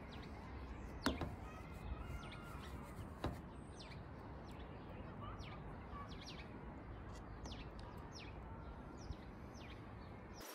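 Birds chirping in short, quick calls over a steady low outdoor background hum, with a couple of faint clicks.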